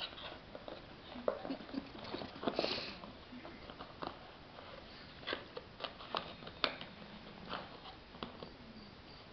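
Paper plate crinkling and crackling in irregular snaps as a Shih Tzu bites and tugs at it.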